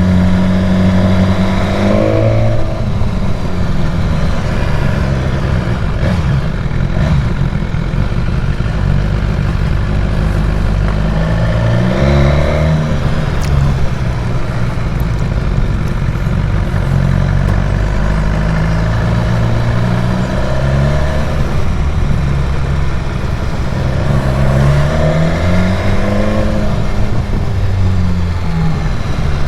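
Motorcycle engine under way, its pitch climbing and dropping as it accelerates and changes gear, over a steady rush of wind and road noise.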